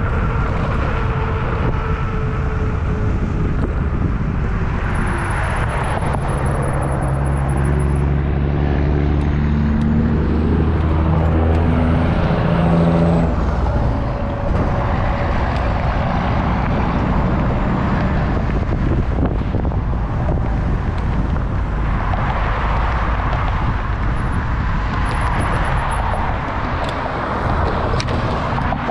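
A vehicle engine running under way, with a steady low engine tone that stands out most from about six to thirteen seconds in.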